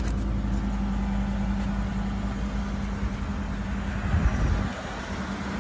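Ford F-150's 5.0-litre V8 idling steadily, a low even hum with no revving.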